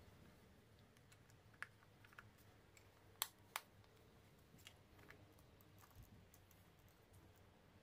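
Faint, scattered clicks and taps of small metal parts being handled and fitted by hand, a motor bracket assembly and a screwdriver, with two sharper clicks a little over three seconds in.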